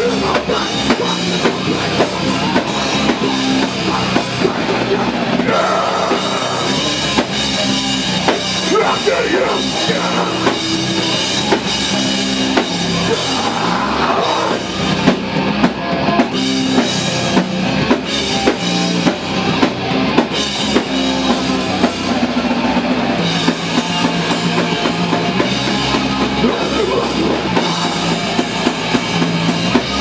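Heavy metal band playing: electric guitars and bass holding heavy chords over busy, steady drumming on a full drum kit.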